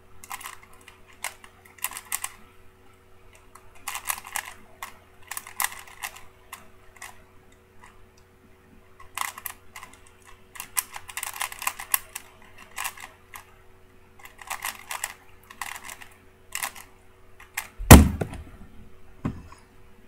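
3x3 Rubik's cube being turned fast by hand in a speed solve: quick runs of plastic clicks and rattles, coming in spurts of about a second with short pauses between them. Near the end there is one loud thump as the finished cube is put down and the hands come down on the timer.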